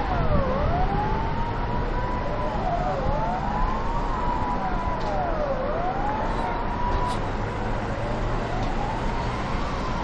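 Emergency-vehicle sirens wailing, at least two overlapping, one sweeping down and back up about every two and a half seconds, over a steady background rumble.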